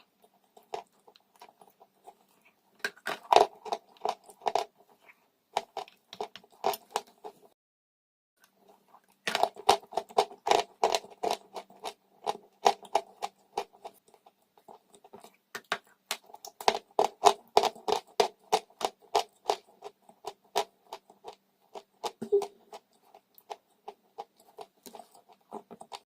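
Dry chalk crunching in a rapid run of crisp crackles, broken by a short pause about a third of the way through.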